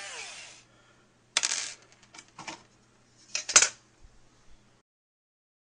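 Logo-intro sound effects: a short falling tone, then several sharp clicks and clatters in three clusters, the loudest about three and a half seconds in, over a faint steady hum.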